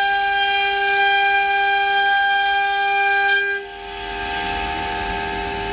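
CNC router spindle whining steadily as its bit mills through a wooden board. About three and a half seconds in, the whine dips briefly and shifts in pitch, and a rougher cutting hiss joins it.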